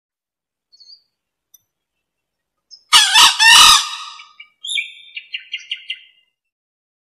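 Male green junglefowl crowing once, a short loud harsh call about three seconds in, used as a lure call. A run of about eight quick, higher chirping notes follows it.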